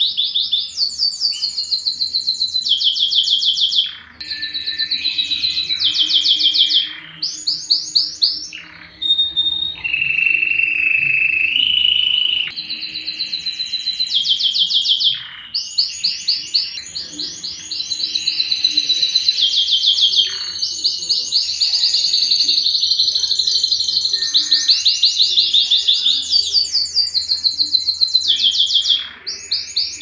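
Domestic canary singing: a continuous song of rapid trills and runs of fast repeated high notes, with a lower rolling trill partway through and a couple of brief pauses.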